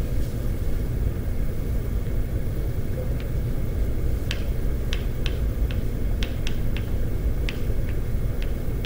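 Chalk tapping on a blackboard while writing: about a dozen short sharp clicks, starting about three seconds in. Underneath, a steady low rumble of room noise.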